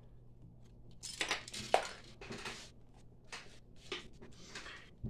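Grey polystyrene sprues and fuselage halves of a Zvezda Mi-8T plastic model kit being handled and set down on a wooden table: a faint, uneven string of light plastic clicks, taps and rattles, the sharpest nearly two seconds in.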